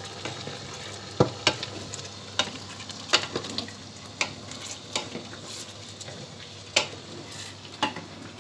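Wild bolete mushrooms sizzling steadily as they fry in a pan, stirred with a wooden spatula. The spatula gives sharp knocks against the pan about every second.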